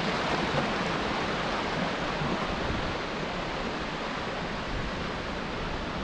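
Steady rushing of a large waterfall: an even, unbroken noise that eases a little about halfway through.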